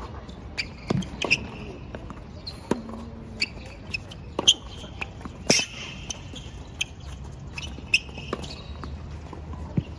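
Tennis rally: a ball struck by rackets and bouncing on the court, sharp hits about once a second, with short squeaks of court shoes between the shots.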